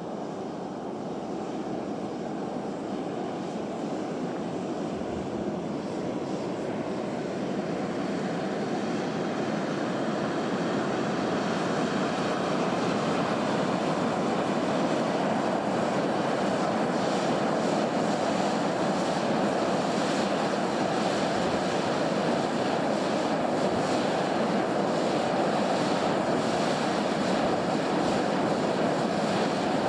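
Sulphur fumarole venting steam and volcanic gas: a steady rushing hiss that grows louder over the first half, then holds.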